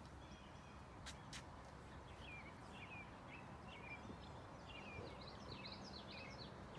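Faint birdsong: many short chirps, with a busier run of higher chirps about five seconds in. Two faint clicks come about a second in.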